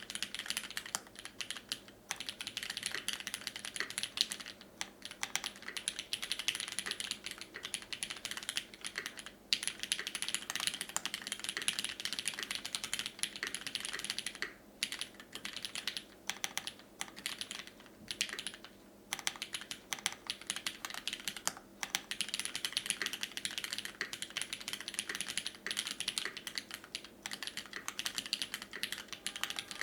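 Fast, continuous typing on a mechanical keyboard with lubed, filmed retooled Cherry MX Black linear switches in a top-mounted brass plate, capped with GMK keycaps. Dense keystroke clicks come in runs, broken by short pauses every few seconds.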